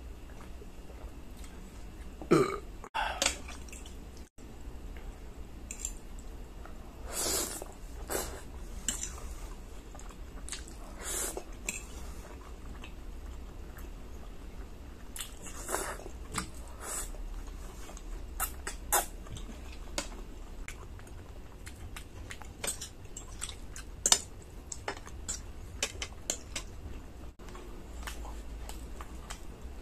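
Close-miked eating sounds: a loud burp about two seconds in, then slurping and chewing of spaghetti, with a few sharp clicks.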